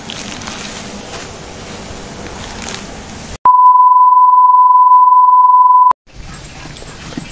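Bars-and-tone test signal: a loud, steady, single-pitched beep that cuts in about three and a half seconds in and stops abruptly about two and a half seconds later. Before and after it, steady outdoor background noise.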